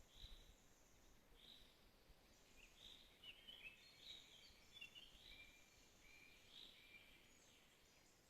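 Faint birdsong: one bird repeats a short high call about once a second, and other birds add brief chirps and notes in the middle, over a low hiss of background noise.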